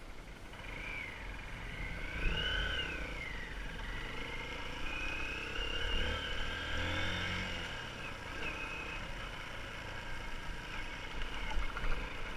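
Motorcycle engine running as the bike rides along, its pitch slowly rising and falling, over a steady low rumble.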